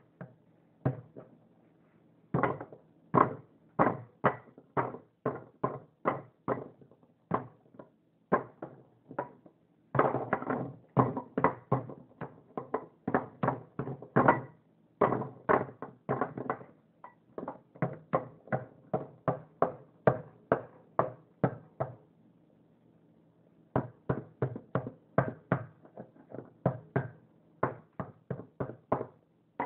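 A block of ice being struck and chipped at with a hard tool in a long run of sharp knocks, about two to three a second, with a brief pause about two-thirds of the way through.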